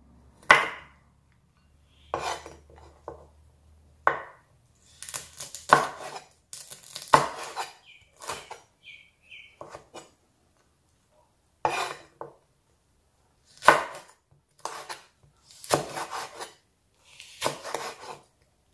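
Chef's knife slicing fresh chillies on a wooden cutting board, the blade knocking the board in irregular runs of cuts with short pauses between.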